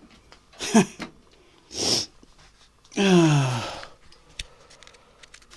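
A man's wordless vocal sounds: a short grunt, a sharp sniff, then a longer breathy sigh falling in pitch.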